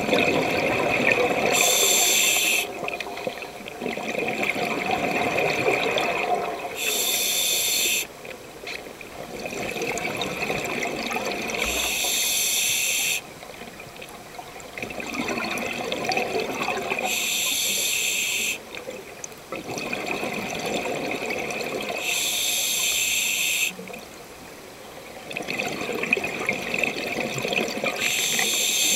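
Scuba diver breathing underwater through a regulator: a short, sharp hiss about every five seconds, alternating with a longer bubbling of exhaled air, six breaths in all.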